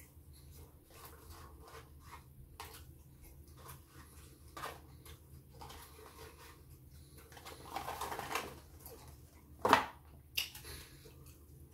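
Close-up eating sounds: chewing and small mouth clicks, with a rustle of a cardboard food box being handled about eight seconds in. Near the end comes a sharp knock as the box is set down on the table, followed by a smaller one.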